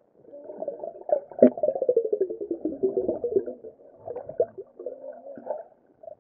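Muffled underwater gurgling and bubbling close to the microphone, dulled by being heard underwater, with a burst of rapid pulses and a slowly falling pitch about one to three and a half seconds in.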